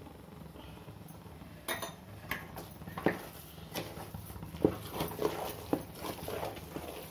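Wooden spatula mixing thick halwa in a metal pot: irregular knocks and scrapes against the pot, starting a couple of seconds in and coming faster in the second half.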